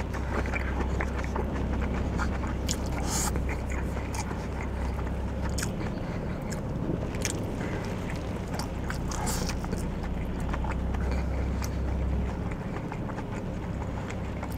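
Close-up chewing of takeout food, with small clicks and scrapes of wooden chopsticks in a paper takeout box, over a steady low hum.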